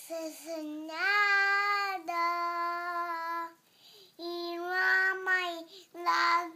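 A young boy singing a Malay song solo and unaccompanied, holding long notes in short phrases with brief breaks between them.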